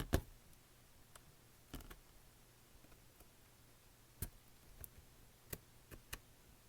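Scattered light clicks and taps from handling the tablet and its small parts, a pair at the start and a few more spread out toward the end, over a faint steady hum.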